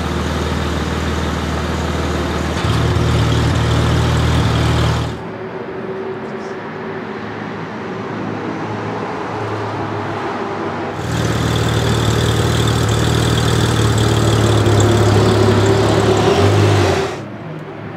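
Ferrari 458 Speciale's naturally aspirated V8 running hard at high revs with a steady note, loud for about five seconds and then suddenly much quieter. The loud engine note returns about eleven seconds in and cuts off abruptly near the end.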